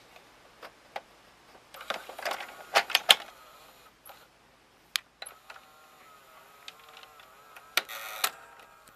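Magnavox VCR's cassette mechanism: a tape is pushed in and the carriage draws it down with a clatter of clicks and clunks about two seconds in. From about five seconds in, the loading motor whirs with a wavering whine and small gear clicks as it threads the tape, with another burst of clunks near the end. The uploader says the heads do not start spinning.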